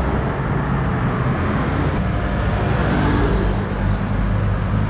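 Steady road traffic noise: cars and other motor vehicles running along the road, with a steady low engine hum.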